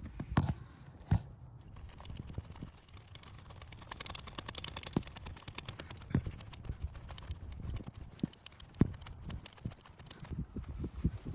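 Metal hand tools clicking and knocking while the thermostat housing is fitted, with scattered sharp taps and a stretch of rapid fine clicking a few seconds in.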